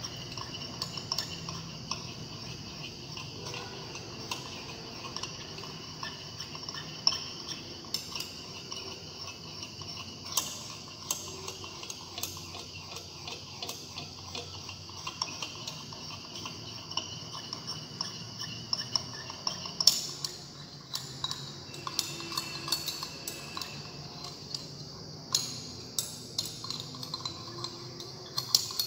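Glass stirring rod clinking and scraping against the inside of a small glass beaker in quick, irregular taps, stirring a phenol–formaldehyde resin mixture.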